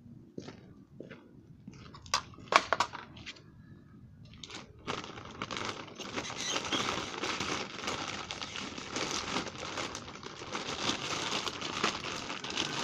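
A few sharp clicks and knocks about two seconds in, then steady crinkling and rustling of plastic close to the microphone from about five seconds in, as plastic water bottles are handled.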